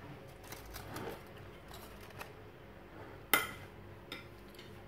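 Quiet handling noise with a few light clicks and one sharp tap about three seconds in.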